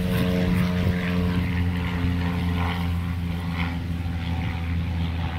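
Airplane engine droning steadily overhead.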